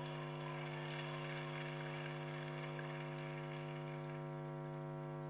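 Steady electrical mains hum and buzz on the sound system, unchanging throughout, with a faint wash of noise for the first three seconds or so.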